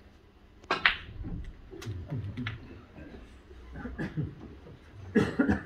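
Snooker cue striking the cue ball in a sharp click about a second in, followed by a fainter click of balls about a second later, over a low murmur from the watching room.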